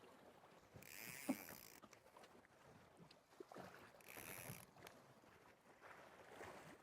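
Near silence, with two faint, brief hisses about a second in and about four seconds in.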